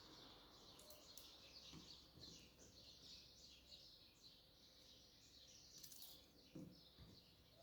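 Faint birdsong with many short chirps, and a few soft knocks.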